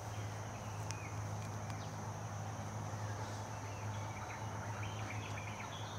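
Wild forest ambience: a steady, high insect drone, with birds chirping in short wavering calls from about halfway in, over a low steady hum.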